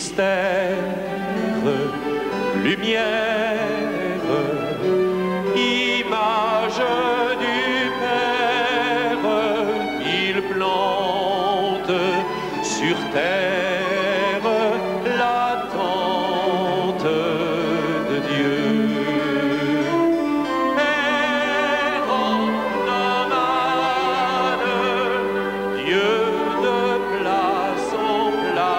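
A man sings a hymn into a microphone in an operatic style with strong vibrato, over musical accompaniment. A mixed choir of congregants sings with him.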